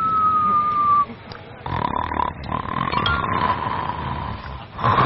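A man imitating loud snoring. A thin whistling tone slides slowly down through the first second, and after a short pause the snoring noise goes on over a steady tone until shortly before the end.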